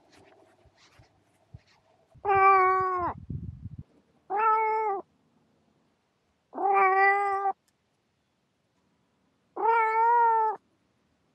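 A barn kitten meowing four times, each meow about a second long with gaps of one to two seconds between them. A brief low rumbling noise follows just after the first meow.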